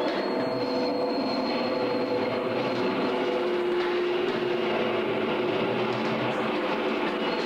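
Free-improvisation ensemble of percussion, guitar and electronics, saxophone, violin, piano and cello, playing a dense, steady drone of several held tones over a noisy haze. A thin high tone sounds through the first three seconds.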